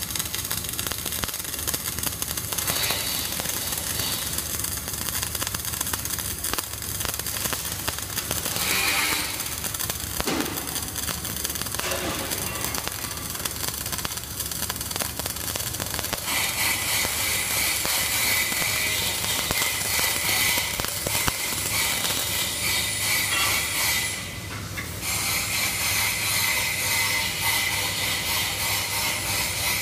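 Flux-cored arc welding (FCAW): the arc crackles steadily as the weld bead is run. About halfway through, a louder high hiss joins it and breaks off briefly near the end.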